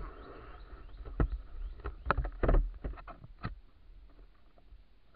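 Handling noise on a body-worn camera: a run of sharp clicks and knocks with low thumps and rumble, busiest in the first three and a half seconds, then fainter rustling.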